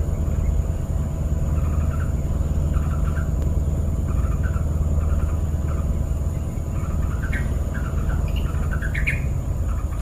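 Yellow-vented bulbul calling in short, chirpy phrases repeated every second or so, with two higher rising notes late on, over a steady low rumble.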